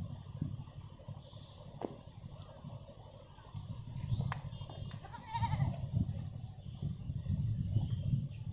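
A short, wavering animal call about five seconds in, over a low rumbling noise and a few faint clicks.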